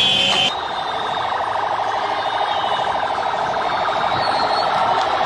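Vehicle siren: a high steady tone breaks off abruptly about half a second in, then gives way to a rapid pulsing siren sound.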